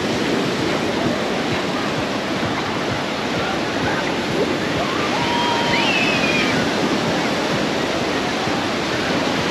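Ocean surf washing onto the beach in a steady rush, with a brief high-pitched cry about five to six seconds in.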